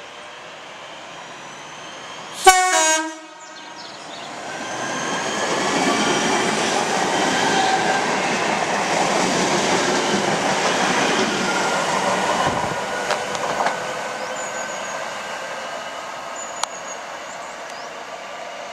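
A short, sharp single-tone blast on a train horn, then a train passing: rumble of wheels on rail that builds over a couple of seconds, holds for several seconds and fades away.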